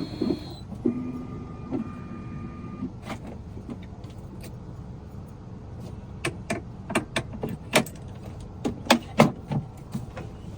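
A series of light clicks and knocks, irregular and most frequent in the second half, over a low steady hum.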